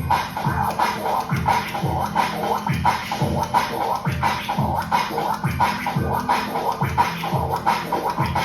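Drum and bass music with DJ record scratching cutting over it. Deep bass hits that drop in pitch land about every 0.7 s under choppy scratch sounds.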